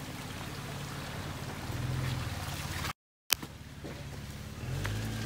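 1996 Lexus LX450's 4.5-litre inline-six running at low revs as the truck crawls through a muddy rut, swelling briefly twice, with tyres churning through mud and water. The sound cuts out for a moment about three seconds in.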